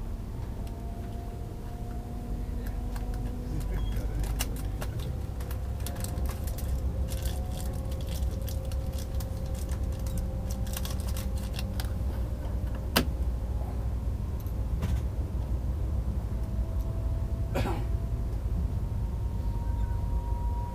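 Inside an AVE Series 103 high-speed train at speed: a steady low rumble from the running gear, with faint electric whines gliding slowly in pitch. Scattered light clicks and rattles come through the middle, with one sharp click about two-thirds of the way through.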